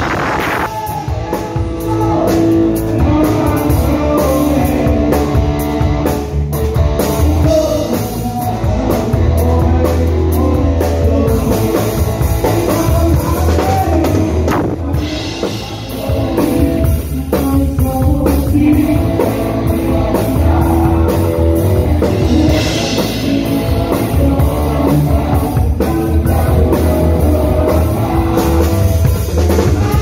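Rock band playing live, a drum kit with cymbals played hard together with guitar. The loudness dips briefly about halfway through, then the full band carries on.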